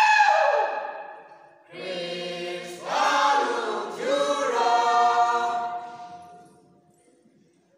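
A mixed group of young men and women singing a folk song together, unaccompanied, in long held notes. The first note slides down, then phrases swell and fade, dying away about seven seconds in.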